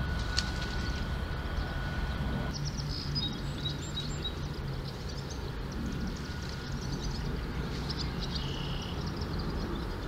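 Outdoor park ambience: a steady low rumble of distant city noise under scattered small-bird chirps and short whistled notes. A faint thin steady tone stops about two and a half seconds in.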